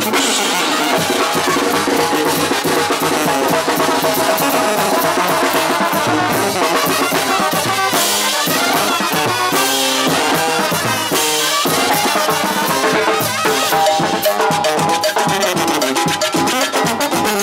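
Oaxacan brass band playing festive music: sousaphones and trumpets carrying the tune over a steady beat of snare drum and crash cymbals.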